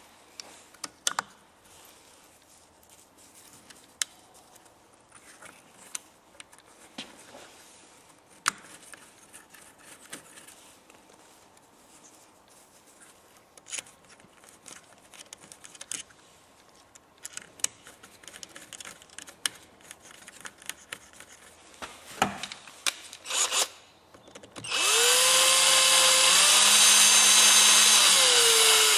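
Scattered small clicks and knocks of parts being handled, then near the end a power drill runs for about four seconds, rising in pitch as it spins up and falling as it winds down, during installation of the alternator's brush pack.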